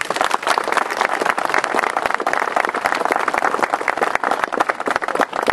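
Audience applauding: dense, steady hand clapping from a crowd.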